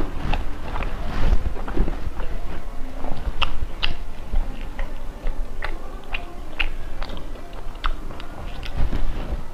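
Close-up mouth sounds of a person biting and chewing soft cream-filled bread, with many short, wet clicks and smacks at an irregular pace.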